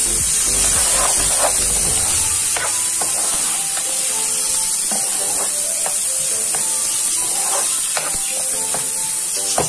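Diced mixed vegetables sizzling in hot oil in a non-stick frying pan, with a steady hiss, while a metal spatula stirs them, scraping and tapping against the pan now and then.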